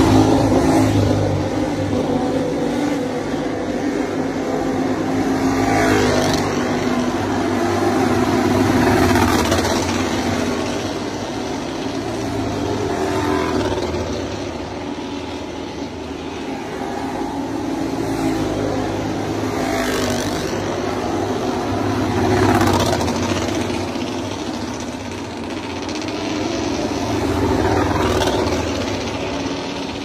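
Grand Prix racing motorcycles running down the pit lane one after another. Each engine rises and falls in pitch as the bike passes, over a steady mix of engine sound.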